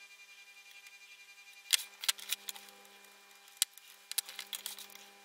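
Sharp clicks and taps of soldering work at the bench: the soldering iron, solder reel and frame plate being handled on a cutting mat, coming in two short clusters about two and four seconds in, over a faint steady hum.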